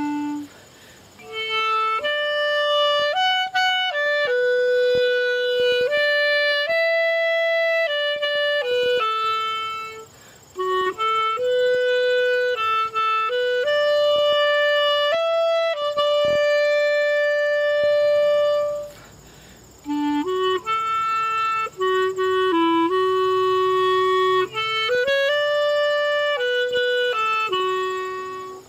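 Solo clarinet playing a slow hymn melody, one held note at a time with no accompaniment. Short pauses fall between the phrases.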